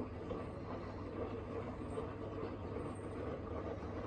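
Hoover H-Wash 700 front-loading washing machine in the main wash of its 90° drum-clean cycle: the drum turning with a steady low hum under a continuous churning noise.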